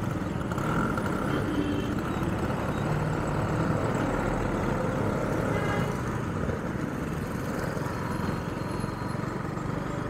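KTM RC motorcycle's single-cylinder engine running at low speed in slow street traffic, a steady low rumble heard from the rider's seat.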